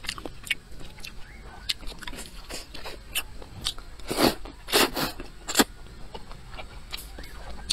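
Close-miked eating of mixed rice noodles with crunchy peanuts: short wet chewing clicks, then three loud slurps of noodles between about four and six seconds in.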